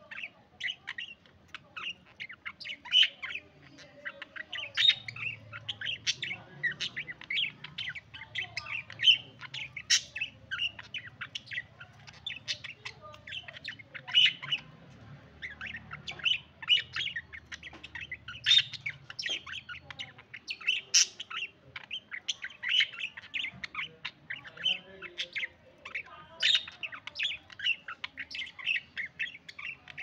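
Budgerigars chattering: a continuous run of short, high chirps, several a second, from birds close by.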